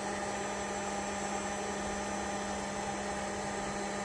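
Electric heat gun running steadily with an even hum, shrinking heat-shrink tubing over a crimped jumper-cable connector.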